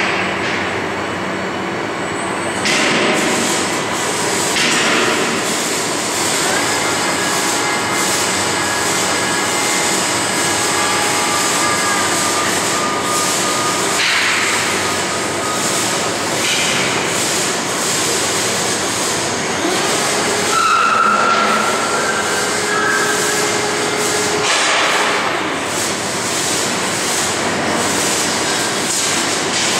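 Steady industrial hiss and hum. Over it come high whining tones that step up and hold for a few seconds, twice: the servo motors of a FANUC M-710iC/20L six-axis welding robot moving its arm and torch.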